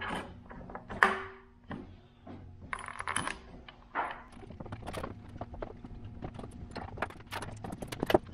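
Metal clicks, clinks and light knocks as an intake cam sprocket is fitted by hand onto the camshaft of a Subaru EJ25 engine. A sharper click comes about a second in, and a run of quick small ticks follows in the second half.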